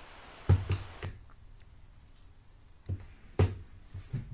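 Irregular soft thumps and knocks on a wooden cat tree as a cat paws and shifts on its platforms: three in the first second, then a few more spread through the rest.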